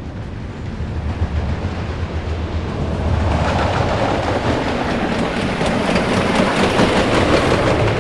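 Wooden roller coaster train running on its track: a low rumble, then from about three seconds in a loud, rapid rattling clatter of the cars over the wooden track.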